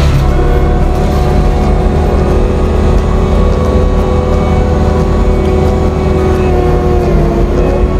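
Compact track loader's diesel engine running at high throttle, driving a forestry mulching head through brush, heard from inside the cab: a steady rumble with a steady whine held over it.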